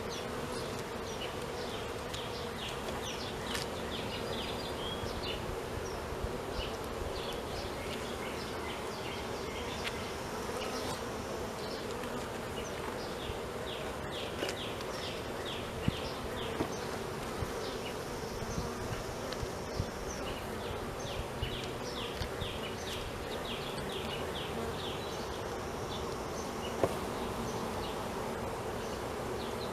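Honeybees buzzing in a steady hum from an open hive, with scattered light ticks and a couple of small knocks.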